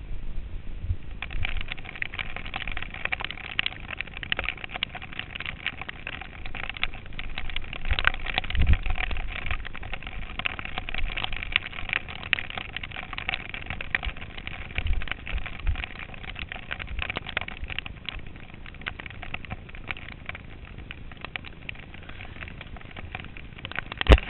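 Riding a bicycle in the rain: a steady hiss of tyres on the wet road, thick with small rattling clicks from the bike, and occasional low thumps, the strongest about eight seconds in.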